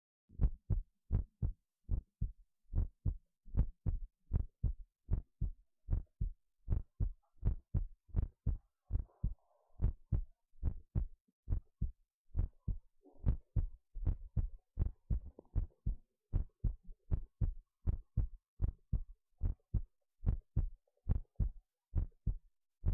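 A human heartbeat recorded through a phonocardiograph's microphone and amplifier: a steady run of short, low beats in lub-dub pairs, starting about half a second in.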